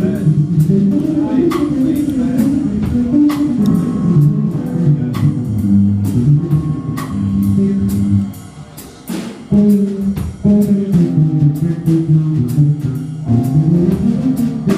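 Live band playing: keyboard, electric guitar and drum kit, with drum hits keeping a steady beat. The band drops to a quieter passage a little past the middle, then comes back in at full level.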